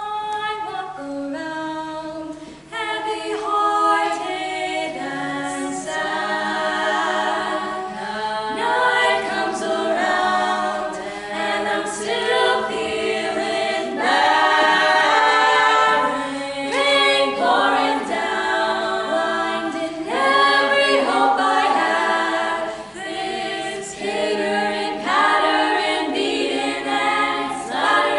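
Choir singing a cappella in close harmony, several voice parts moving together in swelling phrases.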